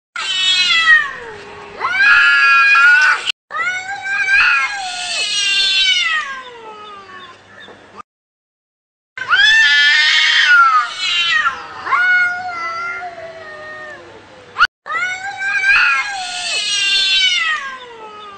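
Angry cat yowling: a series of long, drawn-out caterwauls that waver and slide down in pitch. The calls are separated by abrupt, dead-silent gaps where the recording is cut.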